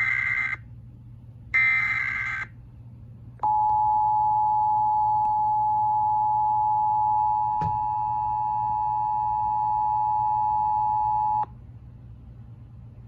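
Emergency Alert System activation: two short screeching bursts of SAME digital header data, then the steady two-tone EAS attention signal (853 and 960 Hz) held for about eight seconds before cutting off. This signals that an emergency alert message, here a child-abduction Amber Alert, is about to be read.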